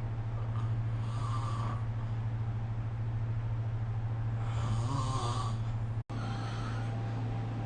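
A sleeping person snoring: two snores about three and a half seconds apart, over a steady low hum. The sound cuts out for an instant about six seconds in.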